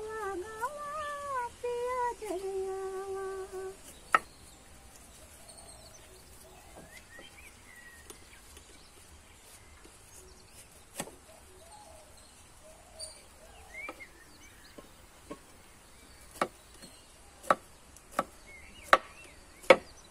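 Kitchen knife cutting through a pineapple: sharp clicks of the blade, one about four seconds in and several in quick succession near the end. A woman hums a tune for the first few seconds, and faint bird chirps come through between the cuts.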